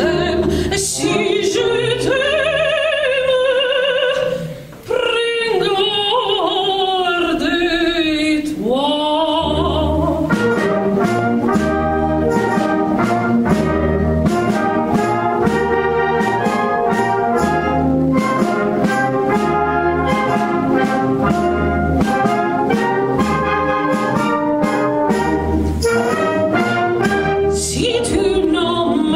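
A woman sings into a microphone with a concert wind band of clarinets, saxophones and brass accompanying her. About ten seconds in her voice drops out and the band plays on with a regular bass beat about once a second. The voice returns near the end.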